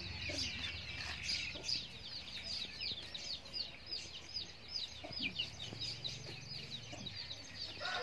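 Chicks peeping in a steady run of short, high, falling peeps, about three or four a second, with a chicken clucking now and then.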